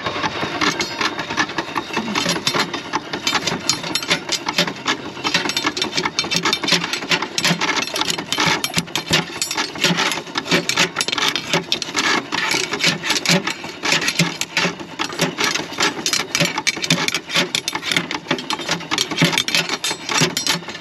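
Metal fire rake scraping and rattling over the grate bars in the firebox of a miniature Foster steam traction engine: a dense, unbroken run of quick metallic scrapes and clinks as the fire is raked through.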